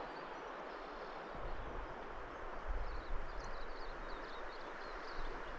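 Clear, shallow river running over a stony bed: a steady, even rush of water. Faint short high chirps come in over the second half.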